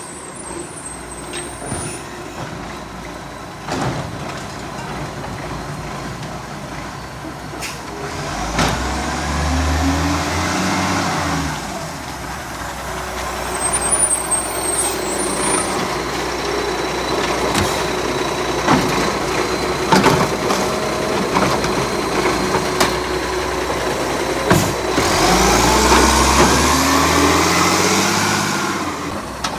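Garbage truck engine running and revving up twice, its pitch rising each time, with scattered sharp clicks and knocks. A small exhaust leak can be heard in the engine sound.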